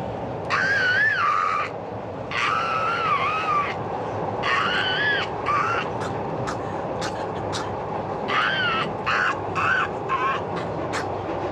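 A person doing a vocal Tyrannosaurus rex impression: high, wavering screeches, three long ones followed by a quick run of short ones. The steady rumble of a subway train runs underneath.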